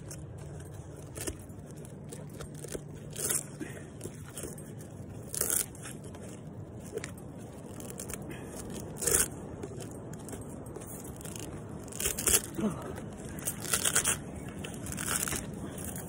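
Fibrous husk of a sprouting ("pregnant") coconut being torn and pulled apart by hand, in short, irregular rips every second or two.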